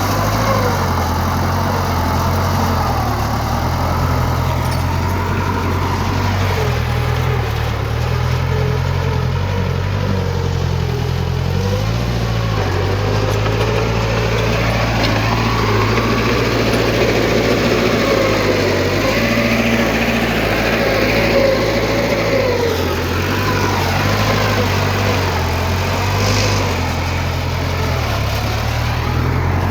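Heavy diesel earthmoving machinery running continuously: a steady low engine drone under a higher whine that rises and falls in pitch.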